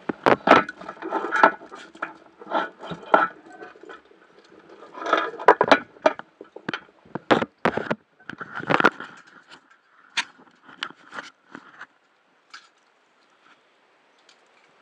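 Exhaled scuba bubbles crackling and bubbling past a head-mounted underwater camera, in two long bursts of dense clicks, then only a few scattered clicks.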